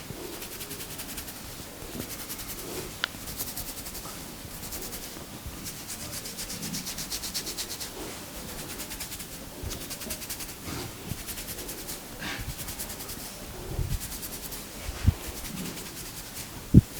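Hands briskly rubbing hair and scalp: a fast, rhythmic scratchy rustle that comes in bursts of several seconds. Two short, sharp knocks stand out near the end.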